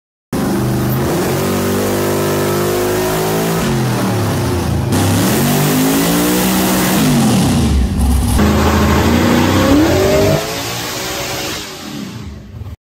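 Supercharged big-block Chevy V8 in a pickup being run on a hub dyno, revving up and down in several pulls. Two dyno runs are edited back to back: an earlier one and one with the current setup after the engine changes.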